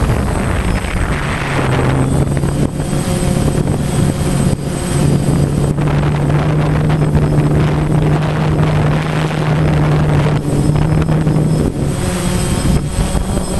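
DJI Phantom 1 quadcopter's motors and propellers whirring, heard close up from the camera on the drone, with a rushing noise of wind and prop wash over the microphone. A steady low hum comes in about a second and a half in and holds until near the end.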